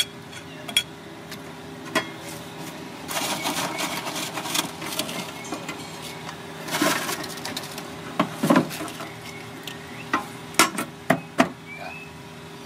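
Food-plating handling sounds: scattered sharp clicks and knocks of a spoon and spatula on a ceramic plate and of a hand in a metal biscuit tin, with crisp rustling as krupuk crackers are taken out of the tin and laid on the plate. A tight cluster of clicks comes near the end.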